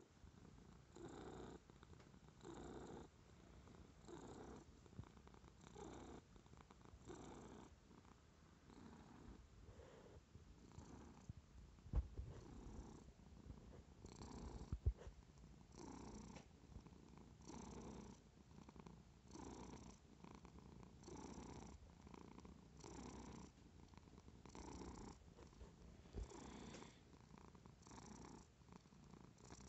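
Domestic cat purring deeply right at the microphone, the purr swelling and easing in a steady rhythm with each breath, about once every second and a half or so. Two sharp knocks stand out, about twelve and fifteen seconds in.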